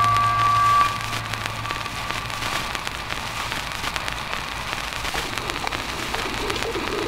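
Held musical tones that stop about a second in, leaving a steady crackling hiss with many scattered small clicks.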